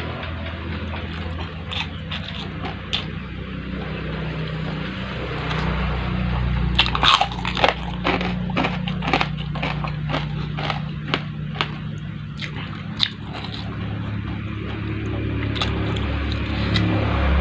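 A person chewing a large mouthful of food close to the microphone, with a run of sharp, crisp crunches about halfway through.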